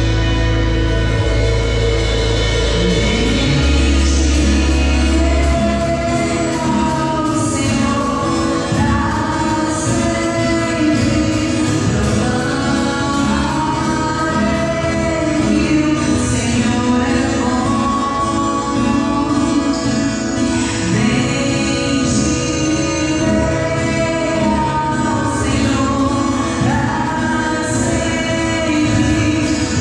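Live church worship band playing a gospel song through the PA, with voices singing over bass and drums; heavy sustained bass notes lead in before the singing begins a few seconds in.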